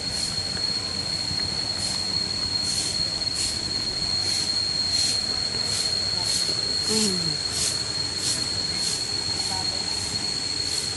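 Insects calling: a steady high-pitched whine with a pulsing chirr that repeats a bit under twice a second.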